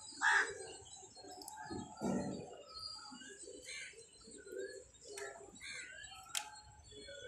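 Birds calling: a crow caws loudly once just after the start, a pigeon gives a low coo about two seconds in, and small birds chirp on and off. A single sharp click comes near the end.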